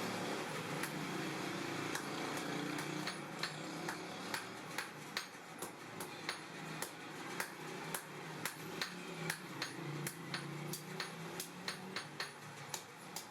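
Blacksmith's hammer striking steel while forging tongs: a few scattered blows, then from about three seconds in a regular run of about two to three strikes a second, over a steady hiss.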